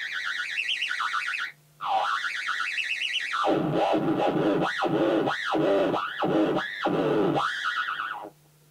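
Open Theremin V3 played through a small tube amplifier: a wavering, vibrato-laden tone gliding up and down in pitch. It drops out briefly about a second and a half in, then makes several fast swoops between deep and high notes and stops near the end.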